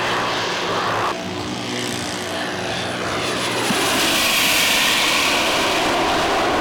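Two JetCat P120 model jet turbines of a large RC BAe 146 model airliner, running in flight as it passes. The sound changes abruptly about a second in, then swells louder with a stronger high rush in the second half.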